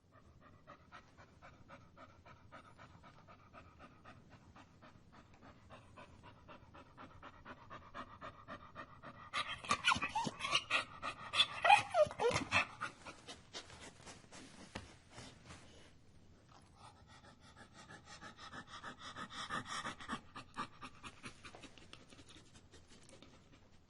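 A dog panting fast and hard, in quick even breaths. About ten seconds in it grows much louder for a few seconds, with a few short cries falling in pitch, then eases off and swells again near the end.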